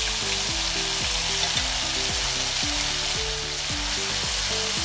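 Wet tomato, onion, chilli and cashew paste sizzling and bubbling in hot oil in a kadai, stirred with a spatula. A steady hiss runs throughout, with low background music and a steady beat beneath it.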